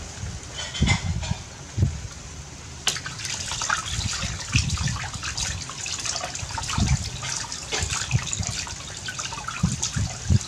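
Water pouring from a thin hose into a plastic basin while hands splash and rinse in it, busier from about three seconds in, with a few low thumps early on.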